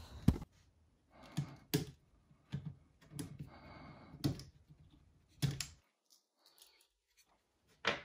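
Scattered light clicks and taps, with faint rustling between, as a laptop logic board is handled and its power connector is worked free with a plastic pry tool.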